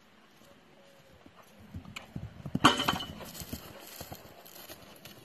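Hoofbeats of a ridden young mare moving at speed over grass: a run of dull thuds that grows as she comes past, loudest about halfway through, then fades away.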